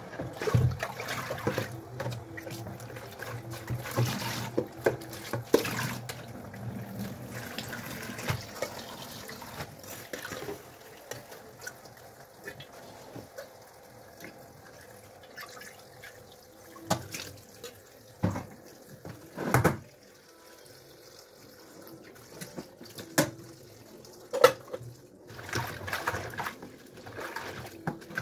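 Water splashing and trickling in a kitchen sink as leafy greens are washed by hand in a plastic basin, with water poured from a metal pot over the leaves. Several sharp knocks stand out in the second half.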